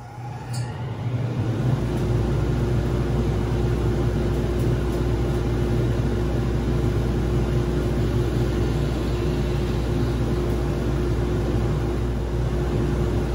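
Workshop vacuum switched on. It rises to full speed over about the first two seconds, then runs steadily with a low hum and a constant whine.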